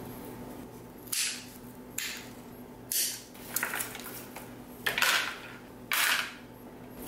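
Bamboo plant stakes being worked out of a potted orchid's bark mix and set down on a plastic tray: about six short scraping rustles.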